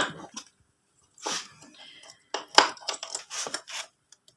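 Short metallic clicks and scrapes in a few quick clusters: a motorcycle rectifier regulator and its mounting nut being handled and fitted back into place.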